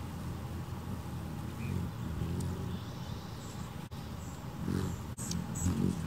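Hummingbird hovering close by at a feeder: a steady low wing hum that swells twice in the second half, with a few faint high chips.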